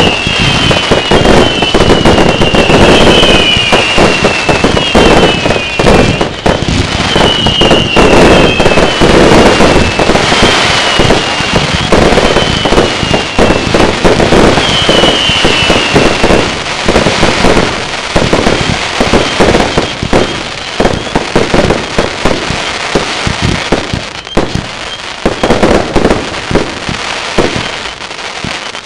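Fireworks barrage: a rapid, continuous stream of shots and bursts, with repeated short falling whistles over the first half. The shots thin out toward the end.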